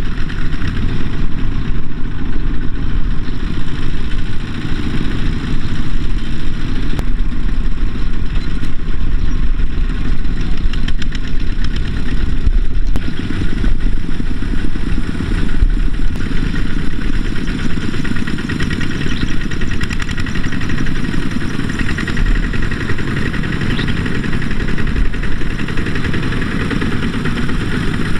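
A two-wheel walking tractor's single-cylinder diesel engine runs loud and steady, hauling a trailer loaded with rice sacks.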